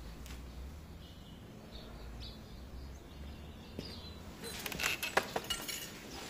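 Quiet outdoor ambience with a few faint bird chirps, then a quick cluster of clicks and knocks a little past two-thirds of the way through.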